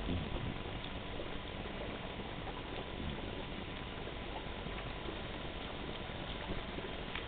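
Steady crackling hiss with a faint, thin, steady high tone and a few scattered faint clicks.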